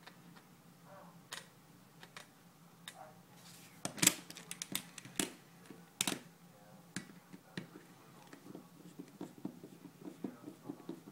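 Screwdriver clicking and tapping against a speed cube's plastic pieces as its core screws are loosened: irregular small clicks, two louder ones about four and six seconds in, and a quick run of light ticks near the end.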